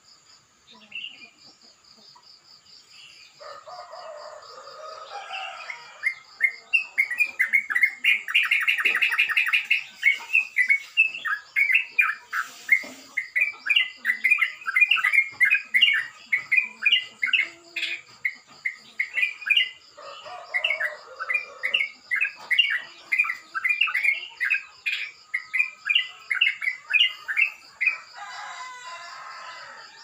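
Yellow-vented bulbul (crucukan) singing a rough, rapid song: a long string of quick chirping notes that begins about six seconds in, with a very fast trill a few seconds later, over a faint steady high-pitched tone.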